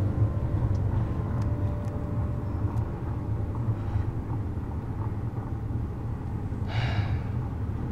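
Steady low rumble of a car interior while driving: engine and road noise heard from inside the cabin. Near the end comes one brief soft hiss.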